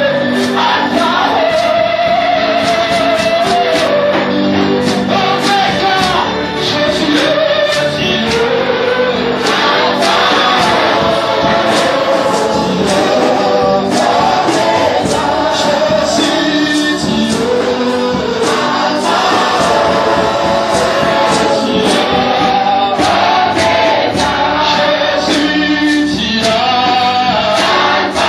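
Gospel worship music: a choir singing with a band, with a steady beat.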